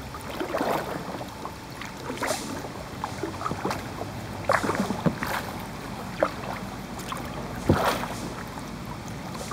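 Kayak paddling on a slow river: the paddle dipping and dripping, with irregular small splashes. A sharper splash or knock comes about three-quarters of the way in.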